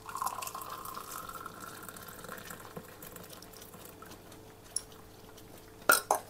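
Thick milky barley porridge poured through a metal sieve into a glass mug, a filling sound whose pitch rises slightly as the glass fills and then fades out. Two sharp knocks near the end.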